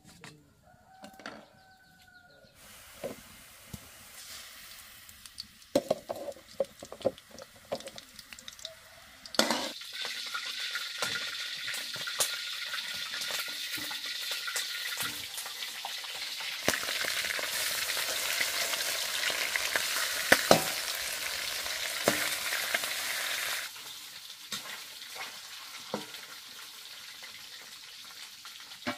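Food frying in hot oil in a pan, a dense sizzle that starts suddenly with a clatter about a third of the way in, grows louder, then drops off sharply a few seconds before the end. Scattered knocks of utensils against the pan come before and after the sizzle.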